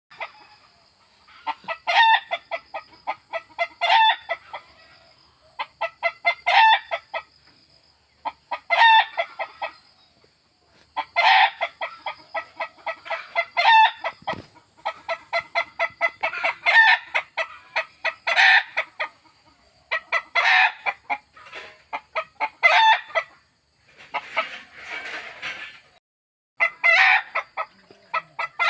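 Desi hen clucking in repeated runs, each a quick string of short clucks ending in a louder drawn-out note, about every two seconds.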